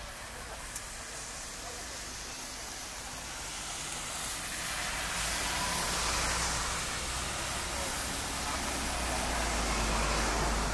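Vehicle tyres on a rain-wet road: a hiss that swells twice as traffic passes, over a low rumble.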